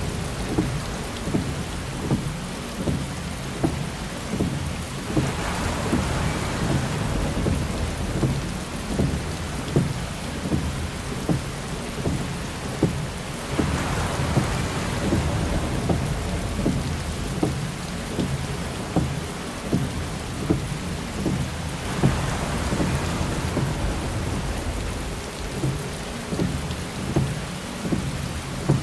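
Heavy rain pattering densely on a car, with a low rumble underneath and a windshield wiper swishing across the glass about every eight seconds.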